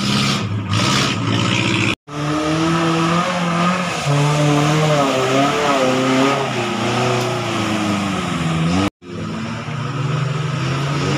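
Off-road 4x4's engine revving hard, its pitch rising and falling over and over as it pulls through mud and brush. The sound cuts out abruptly twice.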